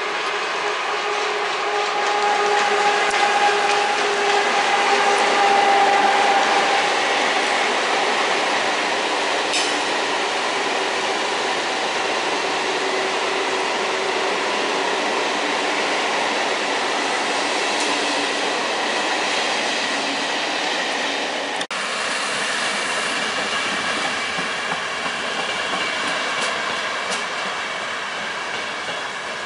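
A freight train of loaded open hopper wagons hauled by an electric locomotive rolls past, with steady wheel-on-rail running noise and a steady humming tone for the first several seconds. About 22 seconds in the sound drops out for an instant, then steady rail running noise continues, with thin high squealing tones.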